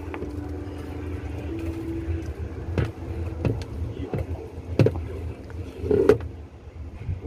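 Raw fish paste being slapped and worked by hand in a bowl: four sharp slaps about a second apart in the second half, the loudest near the end. A steady low hum runs underneath.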